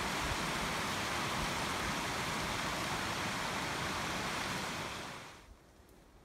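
Steady outdoor rushing noise with a fluttering low rumble. It fades out about five seconds in, leaving a much quieter background.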